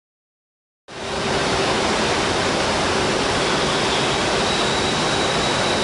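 Steady industrial noise of glass-furnace batch-charging plant: a dense, even roar with a faint high whine running through it. It starts abruptly about a second in.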